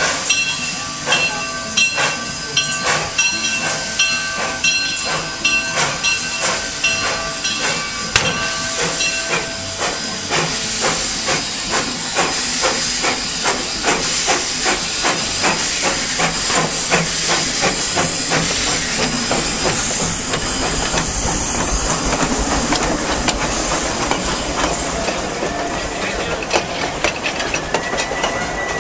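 Narrow-gauge steam locomotive pulling away and passing at close range: steady exhaust chuffs that quicken as it picks up speed, with its bell ringing over them for the first nine seconds or so. Later a steady hiss of steam takes over as the engine goes by and the coaches roll past.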